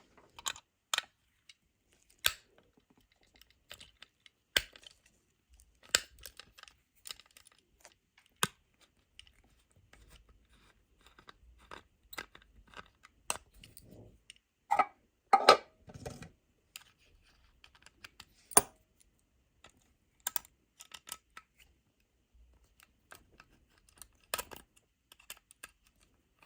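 Small screwdriver undoing the screws that hold a diecast model car to its plastic display base: scattered light clicks, ticks and scrapes of metal on plastic, with a louder stretch of scraping and rattling a little past halfway.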